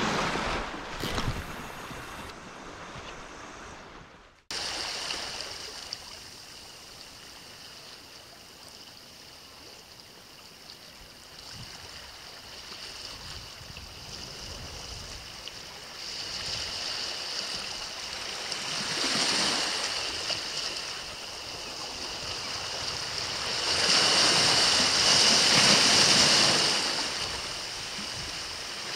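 Small sea waves washing against a rocky shore, swelling twice, the second time the loudest, near the end. A few short knocks come in the first seconds.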